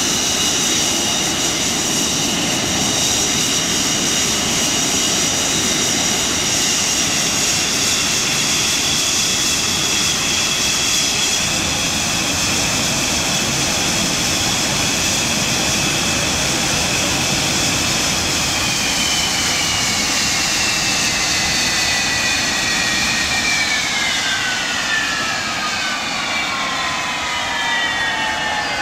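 English Electric Lightning's Rolls-Royce Avon turbojets whining at idle, with a steady high-pitched whine over a jet roar. From about two-thirds of the way through, the whine starts to fall, then drops away steeply as the engines are shut down and run down.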